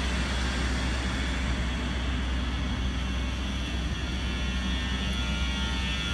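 WAG-12 electric freight locomotive running, a steady low hum with an even rushing whir over it.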